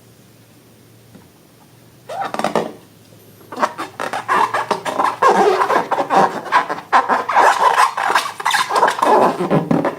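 Slime being handled: after a brief rustle about two seconds in, a dense run of rapid sticky clicks and crackles starts about three and a half seconds in and keeps going.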